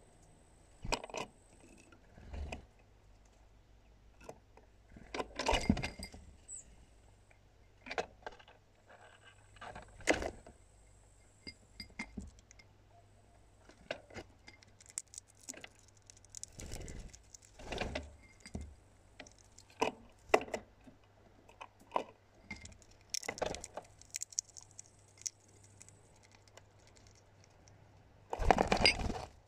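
Hawfinch's beak and feet tapping, clinking and scraping against a clear cup at close range: irregular clicks and short clattering bursts, the loudest cluster near the end.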